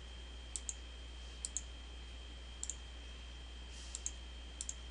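Computer mouse button clicking five times, each a quick pair of clicks, as points of a line are placed while digitizing on a map. A steady low hum and a thin high-pitched tone run underneath.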